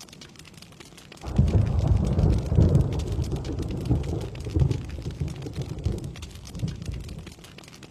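Steady rain pattering, with a roll of thunder breaking in suddenly about a second in. The thunder is loud at first and rumbles away over about six seconds.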